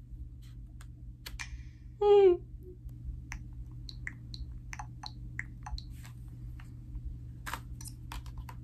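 Small plastic clicks from a Nintendo Switch and its Joy-Con being handled, scattered and irregular. A short pitched tone comes about two seconds in, then a run of faint high blips.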